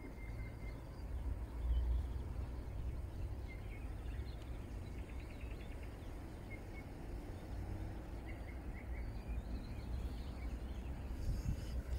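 Outdoor riverside ambience: a low, uneven rumble with faint, scattered bird chirps. A few clicks and rustles come near the end.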